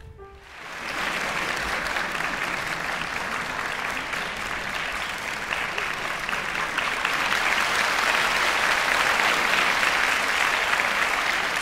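Audience applauding, rising within the first second and growing fuller toward the end; the last held notes of the music die away just at the start.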